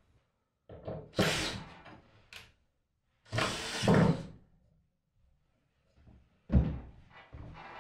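Handling noises against a wooden board wall: two drawn-out scrapes, then a sharp knock about two-thirds of the way through, followed by a few lighter knocks.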